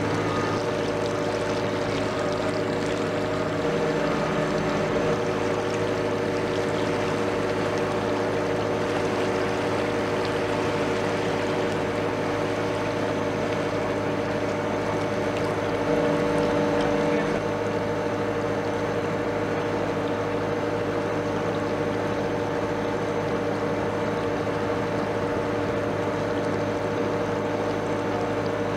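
Steady diesel engine drone of a passing river ship, a low hum made of several steady tones over a rushing haze; it swells briefly about sixteen seconds in.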